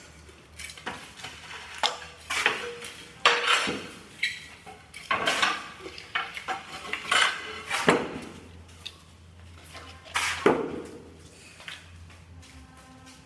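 Ceramic tiles clinking and scraping as they are handled and laid: a string of irregular hard knocks and short scrapes with no steady rhythm.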